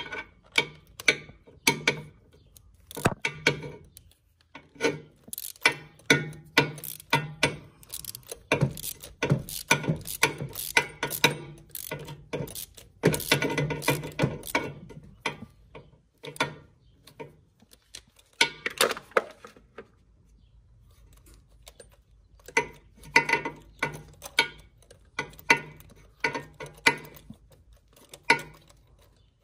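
Hand socket ratchet clicking in bursts of quick strokes as it turns a spark plug out of a Cadillac 3.6L V6 through a long extension and swivel, with a couple of short pauses.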